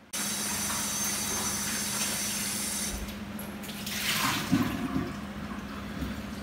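Kitchen tap running into a stainless-steel sink while a plastic bowl is rinsed under the stream. The water sound is strongest for the first few seconds, then changes, with a brighter splash about four seconds in as the bowl is moved under the water.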